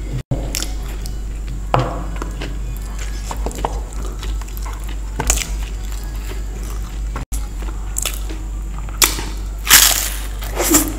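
Close-miked eating sounds: chewing with scattered crunches and mouth clicks, and a few louder crunchy bites near the end, over a steady low hum.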